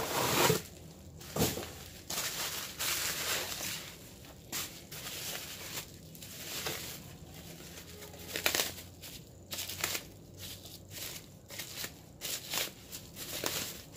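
Packaging being handled: a cardboard box and a pink anti-static bubble-wrap bag crinkling and rustling in irregular crackles as a circuit board is unpacked.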